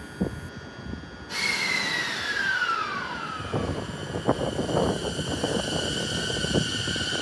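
Electric train's traction inverter whining as it brakes. The whine starts about a second in and falls steadily in pitch, then settles into a steady high hum over rolling rumble, with a few knocks.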